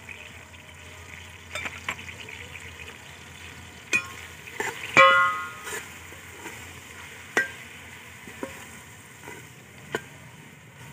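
A perforated metal spatula stirs and scrapes masala in a metal pot, knocking against the pot several times, with one louder ringing clang about five seconds in. Under it the tomatoes and spices fry in ghee with a low sizzle.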